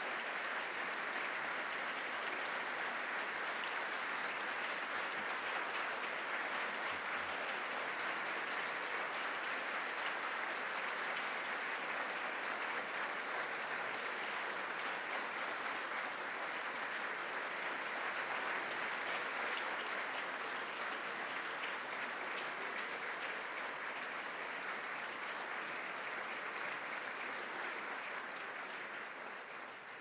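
Large audience applauding steadily, the clapping starting to die away near the end.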